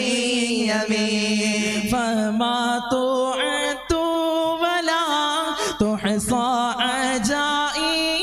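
Male voices chanting an Arabic devotional ode unaccompanied into microphones, in long held notes with ornamented melismatic turns. The singer changes near the middle.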